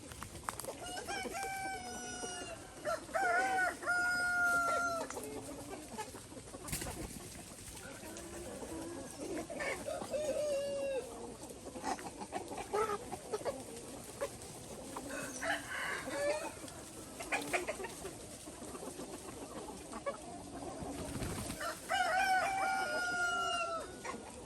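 Roosters crowing, with long drawn-out crows in the first few seconds and again near the end, and chickens clucking in between.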